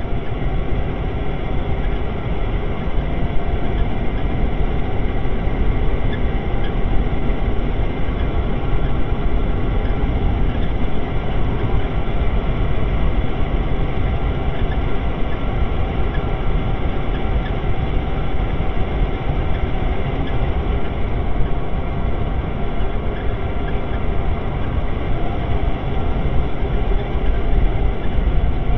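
Steady engine and road noise inside the cab of a large truck rig cruising at highway speed, a loud unchanging drone heaviest in the low end.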